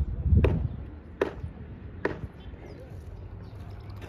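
Three sharp knocks, evenly spaced about 0.8 seconds apart, in the first half, over a low rumble.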